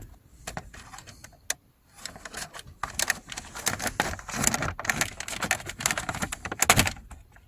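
Plastic clicking and rattling as the connector is worked loose and unplugged from the back of a Ford C-Max instrument cluster, with a busy stretch of scraping and clicks in the middle.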